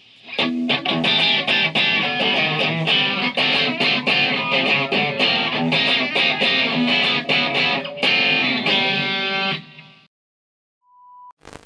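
Electric guitar playing a fast picked riff of many quick notes that stops about ten seconds in. A short steady beep follows a second later.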